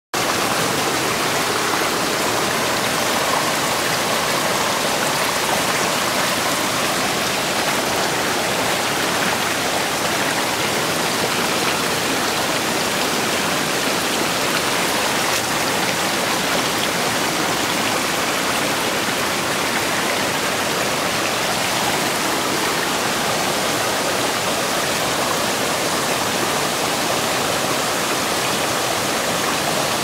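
Shallow mountain stream running over a flat rock bed and splashing down small cascades: a steady, even rush of water.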